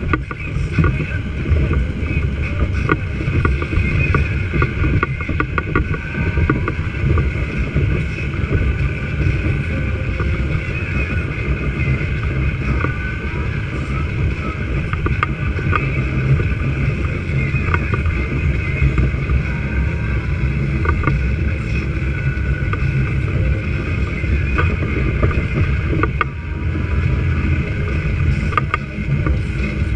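Outboard motor of a small aluminium boat running steadily at cruising speed, with water rushing past the hull.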